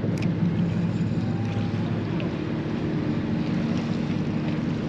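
Steady low engine hum of a nearby ship in harbour, with light wind noise on the microphone and a single sharp click about a quarter second in.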